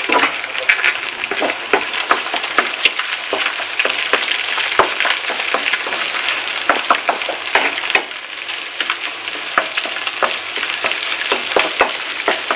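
Eggs sizzling in a non-stick frying pan while a wooden spatula breaks them up and stirs them, with frequent irregular clicks and scrapes of the wood against the pan over the steady hiss.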